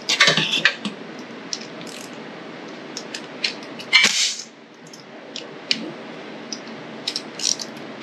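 Hand tools clicking and clinking against the metal parts of a Tillotson 212 small engine as its fasteners are worked loose, in scattered single clicks with a louder clank about four seconds in.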